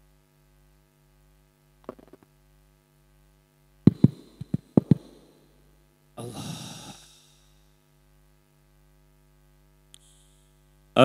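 Mains hum from the stage PA system through a live handheld microphone. A few knocks from the mic being handled come about two seconds in and again around four to five seconds in, and a brief noisy rush into the mic follows around six seconds in.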